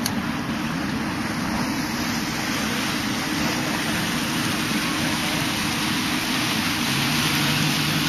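Tour boat's engine running steadily as the boat gets under way, under a steady rush of wind and water that slowly grows louder.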